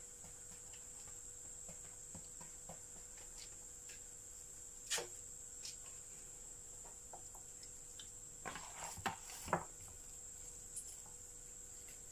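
Faint handling sounds of hands pressing seed-coated dough onto a paper-lined baking tray, with a soft knock about five seconds in and a few more around nine seconds. A constant faint high-pitched whine runs underneath.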